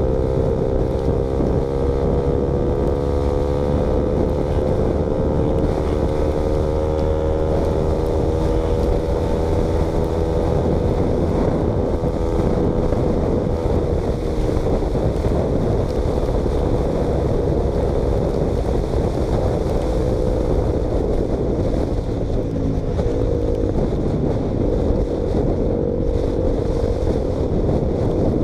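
KTM Duke motorcycle running with its exhaust baffle removed, the engine holding a fairly steady pitch under way, with wind rushing over the microphone.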